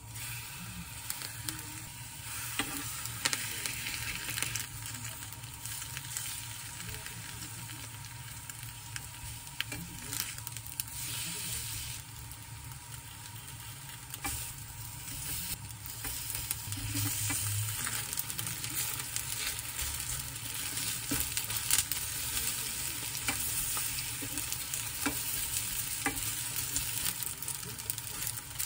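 Batter-coated napa cabbage leaves frying in oil in a shallow pan, a steady crackling sizzle, with occasional light clicks as metal tongs lift and turn the pieces.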